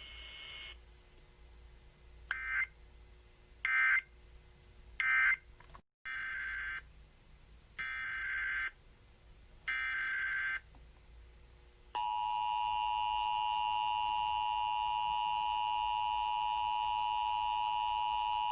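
Emergency Alert System data tones: three short warbling digital bursts (the end-of-message code), then three longer digital header bursts announcing the next alert. About 12 s in, the loud steady two-tone EAS attention signal starts and holds to the end.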